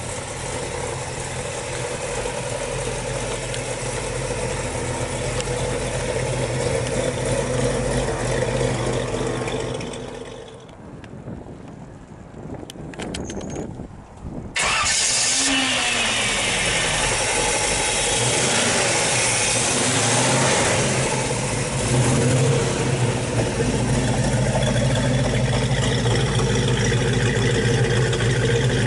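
Chromed 350 cubic-inch V8 with an Edelbrock four-barrel carburettor and headers, running. It drops to a quieter stretch with a few clicks about halfway, then comes back suddenly much louder, the revs falling away before it settles into a steady run.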